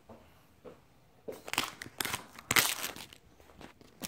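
Handling noise of the recording camera being picked up and moved: several bursts of crinkling and rustling beginning about a second in, loudest near the middle, with small knocks.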